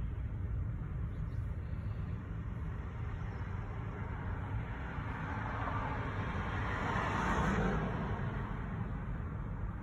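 Steady low rumble of a slow-moving double-stack intermodal freight train rolling through a grade crossing. A rush of road noise from a car passing close by swells and fades about seven seconds in.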